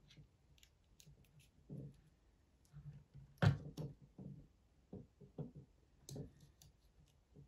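Faint clicks and small knocks of a 9-volt battery and its snap connector being handled and pressed together, the loudest click about three and a half seconds in.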